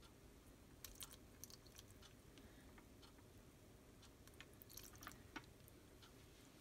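Near silence: faint room tone with scattered, irregular small clicks.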